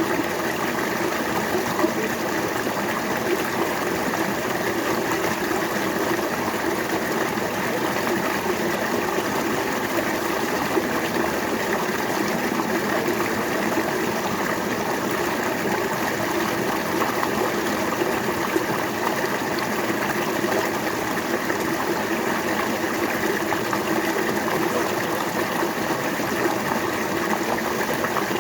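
River water flowing steadily over rocks, a continuous rushing and burbling.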